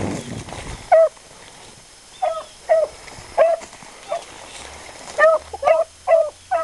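Beagle giving tongue while running a rabbit's track: short, yelping barks, a second or so apart at first, then coming faster near the end as the dog presses the line.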